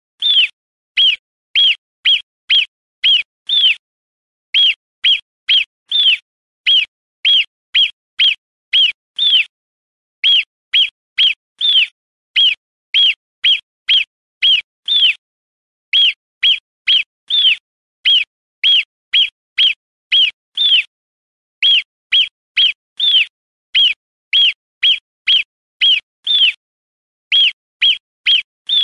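Marmot alarm calls: short, sharp, high whistled chirps, each rising and falling in pitch, repeated about twice a second in runs of seven to nine with brief pauses between runs.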